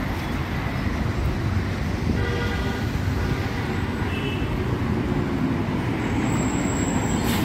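Steady road-traffic rumble heard from a moving vehicle, with vehicle horns sounding briefly about two seconds in and again, higher, about four seconds in.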